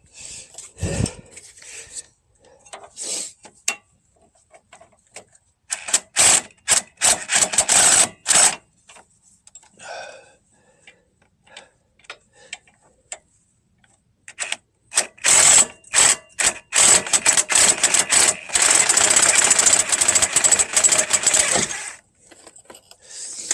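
Drill with an 18 mm socket spinning out two brake caliper bolts that have already been broken loose. It runs in two spells, a short one about six seconds in and a longer one from about fifteen to twenty-two seconds, with clicks and clinks of the socket and bolts between.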